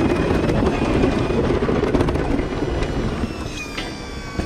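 Pickup truck's red snowplow blade pushing through deep snow, heard close up at the blade: a dense rushing scrape of packed snow with the truck's engine under it, easing off near the end. Thin steady whistling tones come in during the last second or so.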